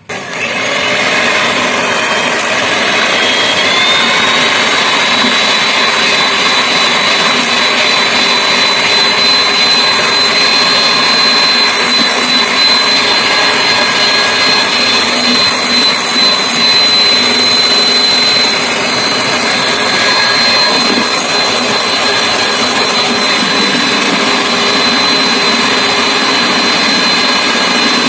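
Electric hand mixer switched on and running steadily, its twin wire beaters whisking raw eggs and sugar in a glass bowl, with a thin motor whine that rises slightly in pitch a few seconds in and then holds.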